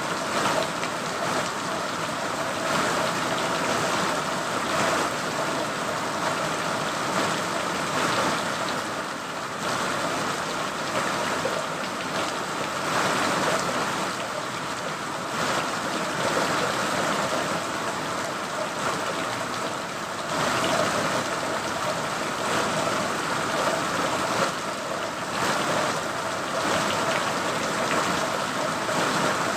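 Steady rain falling, a dense even hiss of drops with small swells in intensity.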